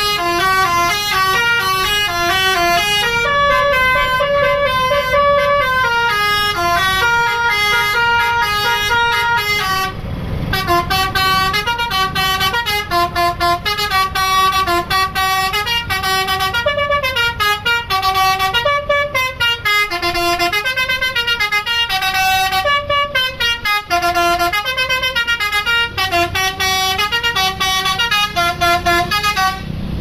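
A tour bus's basuri telolet horn plays a long tune of quick notes stepping up and down. One note is held for a couple of seconds a few seconds in, and the horn breaks off briefly about ten seconds in before a faster run of notes starts.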